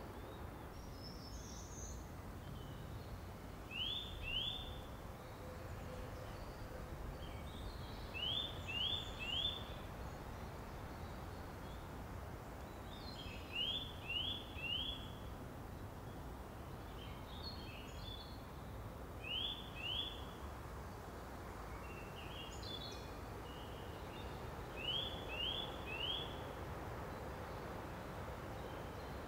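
Outdoor birdsong: one bird repeats a short phrase of two or three quick rising notes about every five or six seconds, with other birds chirping higher and softer in between, over a steady low background hum.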